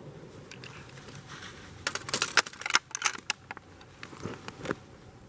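Quick runs of small metallic clicks and clinks, in a dense cluster about two seconds in and a shorter one near the end, from metal gear being handled.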